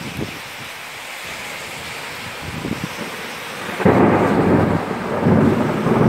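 Heavy rain hissing steadily, then about four seconds in a sudden loud clap of thunder that rolls on and swells again near the end.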